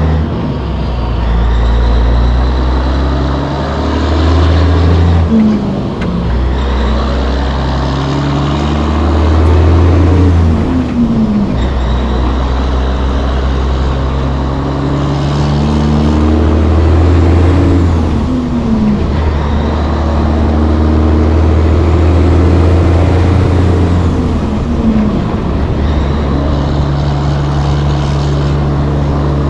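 Caterpillar diesel of a 1984 Peterbilt 362 cabover semi pulling under load, its revs climbing and then dropping several times as the driver shifts up through the gears.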